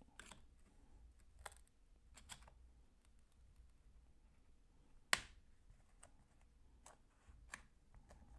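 Faint clicks and scrapes of two screwdriver tips working in the seam of an external hard-drive case as it is pried open, with one sharp click about five seconds in.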